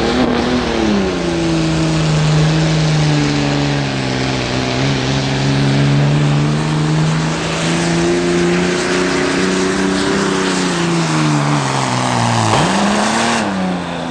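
Dodge Ram diesel pickup pulling a sled under heavy load, the engine held at high revs the whole way. Its note sags a little in the first second, holds steady, climbs slightly past the middle, then drops sharply and climbs back about twelve and a half seconds in before easing off at the end of the pull.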